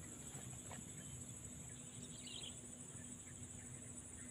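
Quiet lakeside ambience: insects buzzing steadily at a high pitch, with a short bird twitter about two seconds in.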